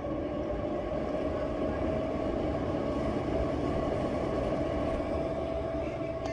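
Late-1960s Leigh bathroom exhaust fan running: a steady whirring drone with a held hum over a low rumble.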